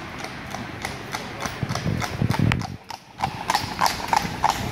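Horse hooves clip-clopping on an asphalt road at a quick, regular pace as a horse pulls a light two-wheeled cart past. The hoof strikes grow louder from about three seconds in as it comes close.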